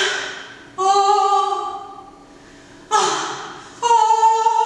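A woman singing wordless notes without accompaniment. A breathy sung cry is followed by a held note, and the pair repeats, each note fading away after its attack.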